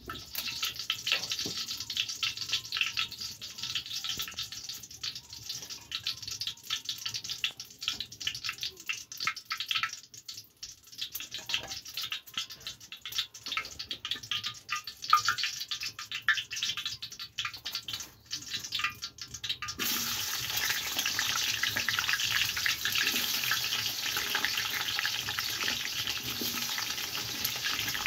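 Crackling and spitting from a pot of oil heating over a wood fire. About two-thirds through, potato wedges go into the hot oil and a louder, steady frying sizzle takes over.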